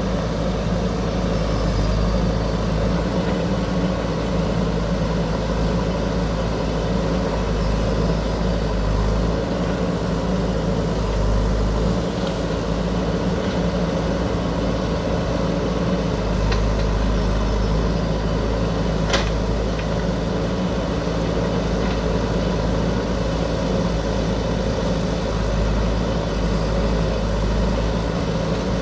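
JCB backhoe loader's diesel engine running steadily, with one sharp click about two-thirds of the way through.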